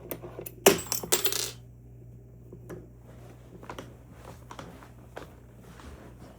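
Small metal objects clattering onto a hard surface about a second in, with a short metallic ring, followed by scattered light clicks and taps of handling.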